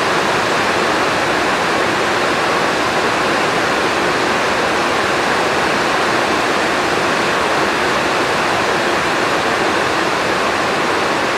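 Heavy rain pouring down in a steady, loud rush, hammering on the roof overhead.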